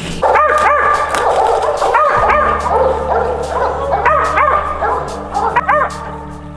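A squirrel dog barking in quick bursts of two or three sharp barks, over background music with steady low tones.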